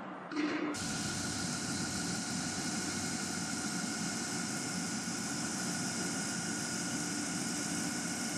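Steady industrial machinery drone with several constant tones and a hiss over it, starting abruptly about a second in and holding unchanged.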